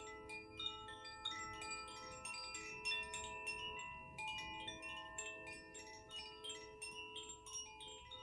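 Chimes struck again and again, a cluster of bright metal tones ringing on and overlapping, played for energy clearing.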